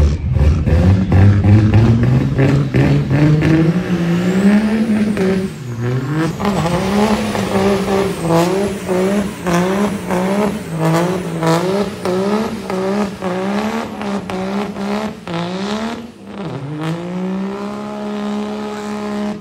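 Pickup truck doing a burnout: the engine revs up, then surges up and down about three times every two seconds over the hiss of spinning rear tyres. Near the end the revs dip and it holds a steady high engine note as the truck pulls away.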